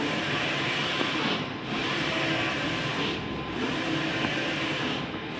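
Large-format flex printer with Konica 512i print heads running a print job: a steady mechanical whirr and hiss as the head carriage sweeps across the media, dipping briefly three times as the carriage reverses at the end of each pass.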